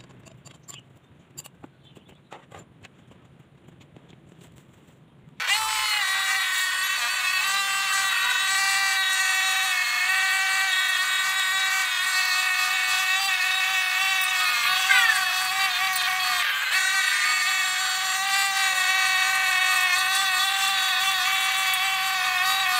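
A few faint clicks and knocks of handling, then, starting suddenly about five seconds in, a two-stroke brush cutter engine running steadily at high revs as it cuts grass, a buzzing whine that wavers slightly.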